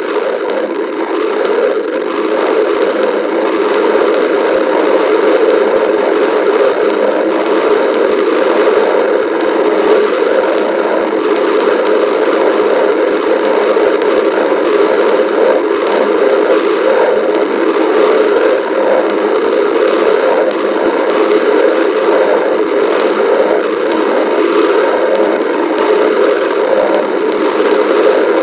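A person's stomach growling: a steady, unbroken rumbling noise with fine crackling through it.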